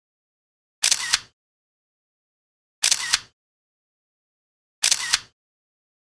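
Camera shutter firing three times, about two seconds apart, each a quick double click, with dead silence between shots.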